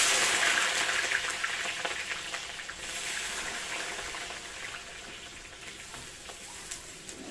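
Food sizzling in hot oil. It starts suddenly as the food goes into the hot pan and slowly dies down, with a few light knocks.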